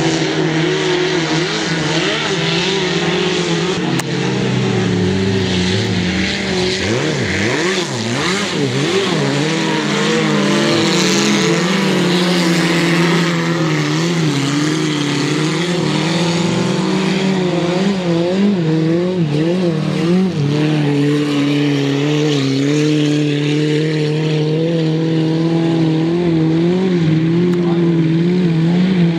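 Several autocross race cars' engines running hard around a dirt track, their overlapping engine notes rising and falling as the drivers rev, lift and accelerate.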